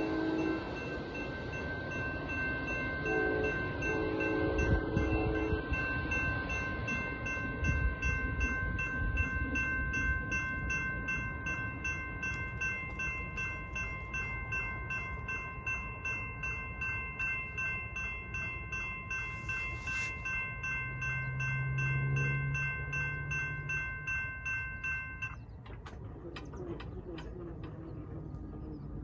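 Electronic bells on a 1970s Santa Fe–built railroad crossing signal ringing in a fast, even pulse, over the rumble of the departing train, whose horn sounds a few times in the first six seconds. The bells cut off about 25 seconds in, followed by clicks and knocks as the crossing gates begin to rise.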